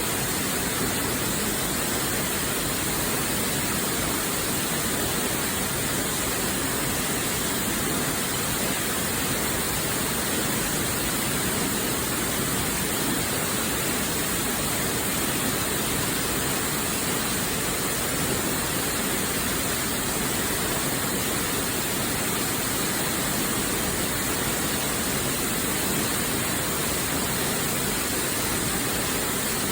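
Waterfall's falling water, a steady, unchanging rush of white noise.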